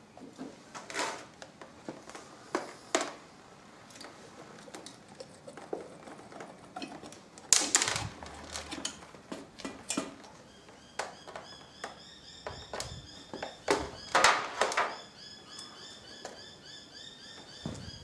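Scattered metallic clinks and knocks of parts and hand tools as the end cover is taken off a Hewland Mk 8 racing gearbox, with a couple of louder clunks near the middle and toward the end.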